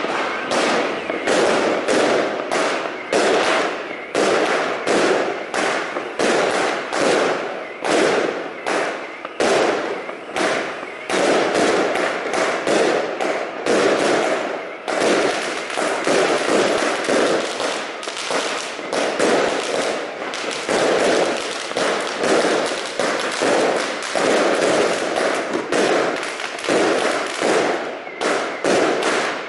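A ground-fired fireworks battery firing shot after shot, a steady run of bangs a few per second as its shells climb and burst overhead.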